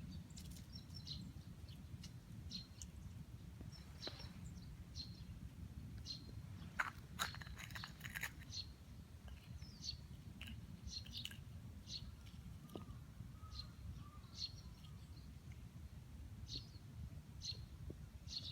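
Small birds chirping in short, high notes about once a second, over a steady low background rumble, with a few sharp clicks midway.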